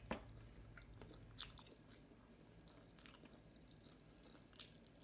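Faint chewing of a person eating by hand, with a few small sharp clicks, one right at the start and a couple more later on.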